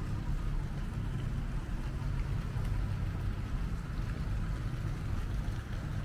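A steady low rumble with a fainter hiss above it and no distinct events.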